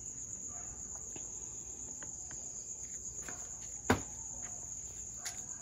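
Crickets trilling steadily at a high pitch. Over them come a few light clicks from wire bullet connectors being handled, with a sharper click about four seconds in.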